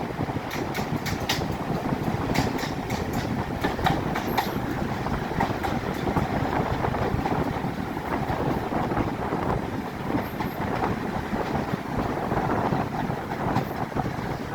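A passenger train hauled by steam locomotive 60163 Tornado running along the line: a steady rumble of wheels on rails, with sharp clicks that are thickest in the first few seconds.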